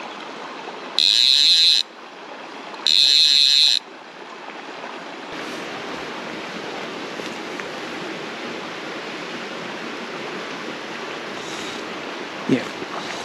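Trutta 2 3/4-inch fly reel's click drag buzzing in two bursts of about a second each as line is pulled off the spool by hand, over the steady rush of a creek. A brief thump near the end.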